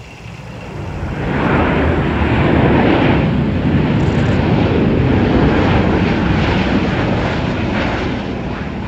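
Boeing 737-700 BBJ's twin CFM56 jet engines rising to a loud roar about a second in as the jet rolls out after touchdown, holding for several seconds and easing off near the end.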